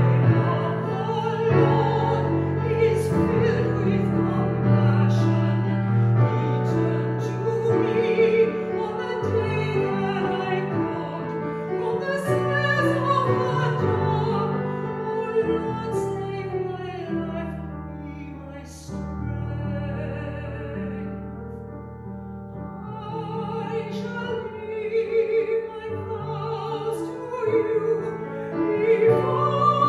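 A solo singer in a classical style with keyboard accompaniment, holding slow sustained notes; the music softens for a few seconds just past the middle.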